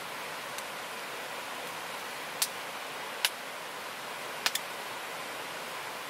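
Steady rushing of a river flowing nearby, with a few sharp clicks a little past the middle, the last two close together.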